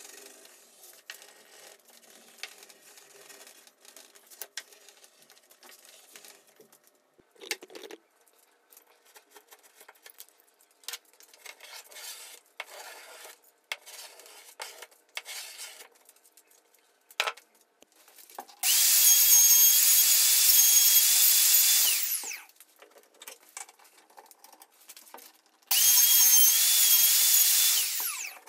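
Light scraping and rubbing strokes of a sanding block and hand plane trimming walnut veneer flush along an MDF tabletop edge. Then a power tool whines loudly twice, for about three and a half and then two and a half seconds, starting and stopping abruptly, as it bores holes through a clamped jig into the veneered top.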